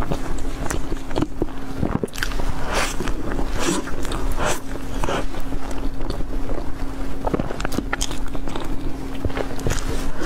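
Close-up biting and chewing of soft bread: irregular crackly, wet mouth sounds, over a faint steady hum.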